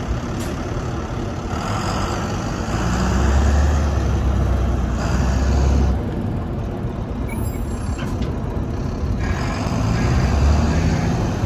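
2007 Volvo A25D articulated dump truck's six-cylinder diesel engine running as the truck moves, pulling harder from about three seconds in, easing back at about six seconds, and picking up again about nine seconds in.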